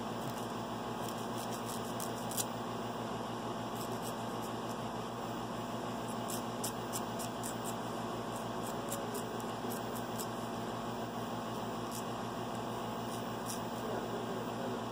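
Steady low background hum with scattered faint high clicks, one a little louder about two seconds in.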